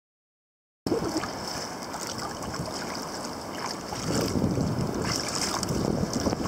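Sea kayak being paddled: paddle blades splashing and water washing along the hull, with wind buffeting the microphone. The sound starts abruptly about a second in.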